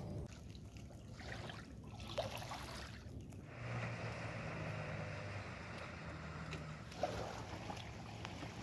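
Faint river-bank ambience: gentle water noise, with a low steady drone for a few seconds in the middle and a couple of light clicks.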